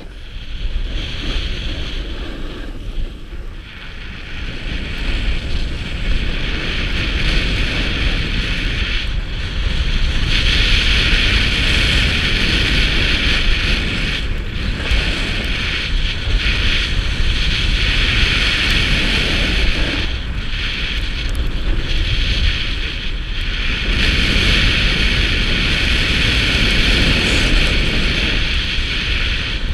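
Wind buffeting the microphone with a low rumble, over the hiss and scrape of edges sliding across packed snow, which swells and fades in stretches of a few seconds as the turns go.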